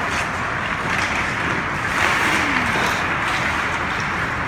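Steady game noise from a hockey rink: a constant hiss-like din with a few faint knocks.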